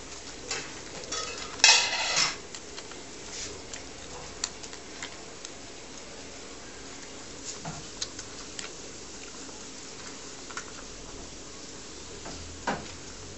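Springer spaniel puppies suckling from their mother: scattered small clicks and smacks, with one short, loud, harsh noise about two seconds in.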